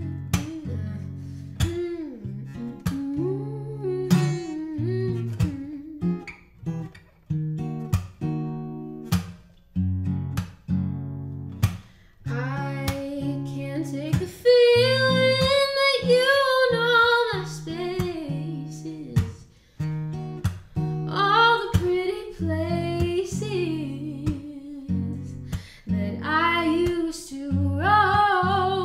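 Acoustic guitar strummed in a steady rhythm, with a woman's voice singing long, wavering notes over it from about halfway through and again near the end.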